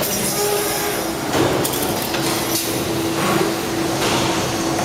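Double-head CNC 3D wire bending machine (Marushow MB07 3DW) running: a steady mechanical noise with a steady hum tone coming in about two seconds in, and a few clicks.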